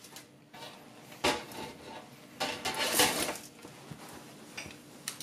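Round metal cake pan being flipped over onto a wire cooling rack on a sheet pan: a knock about a second in, then a longer clatter of metal on metal around three seconds in, and a couple of light taps near the end.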